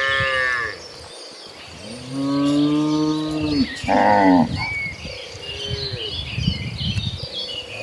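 Cattle mooing in a herd, several animals calling in turn: a short high-pitched call at the start, a long low moo about two seconds in, then a shorter higher call around four seconds. Small birds chirp throughout.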